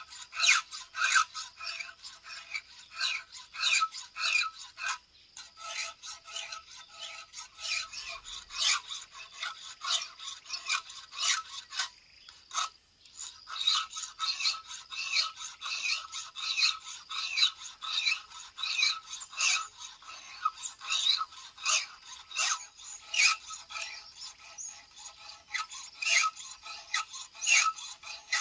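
A hand file rasping across the cutters of a Stihl MS 070 chainsaw chain, sharpening it in steady strokes about two a second, with short breaks about five and twelve seconds in.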